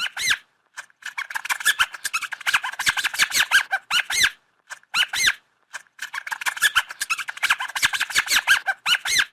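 A rodent giving rapid, high-pitched squeaks and chitters, in two long runs with short bursts between them.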